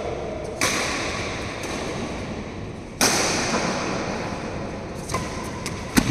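Badminton rackets striking a shuttlecock in a rally: three sharp smacks, about half a second in, at about three seconds and near the end, each ringing on in the large hall's echo.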